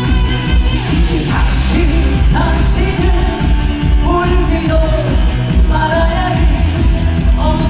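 A male singer singing live over amplified pop backing music with a steady heavy bass beat and long held, bending vocal notes.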